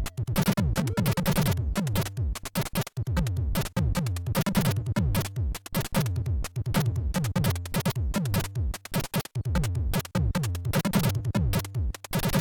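Commodore 64 SID chip music: a fast electronic tune driven by rapid falling-pitch drum thumps and hissing noise hits.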